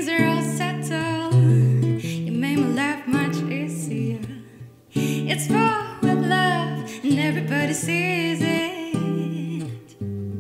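A woman singing into a microphone, accompanied by an acoustic guitar playing sustained chords. Her phrases break off briefly about halfway through and again near the end while the guitar carries on.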